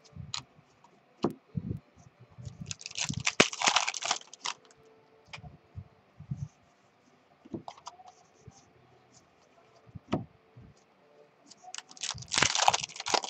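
A trading card pack's plastic wrapper crinkling and tearing open, in two dense bursts: one about three seconds in and one near the end. Between them come soft taps and slides of cards handled on a tabletop.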